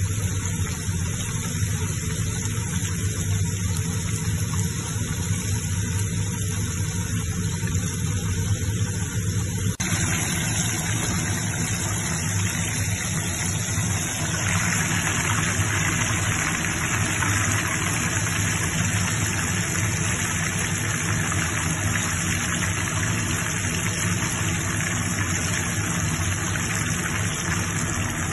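Breaded pork cutlets (tonkatsu) deep-frying in a wok of hot oil, sizzling and bubbling steadily over a constant low hum. About halfway through, the sizzle becomes brighter and fuller.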